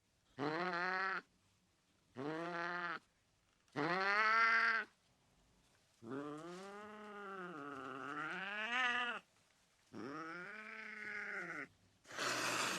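Angry domestic cat yowling: three short moaning calls a second or so apart, a long wavering yowl of about three seconds, one more call, then a sharp hiss at the end.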